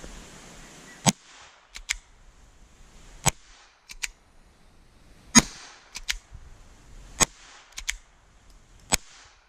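Kel-Tec P17 .22 LR pistol firing five CCI Quiet low-powered rounds, one sharp shot about every two seconds. Between shots there is a quick double click as the slide is racked by hand.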